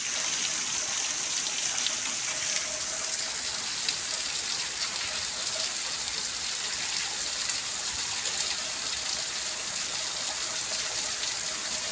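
Rain falling steadily, an even hiss of many drops.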